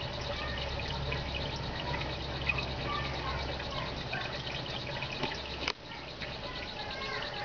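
Aquarium water trickling and dripping over a low hum. The hum drops out with a sharp click just before six seconds in.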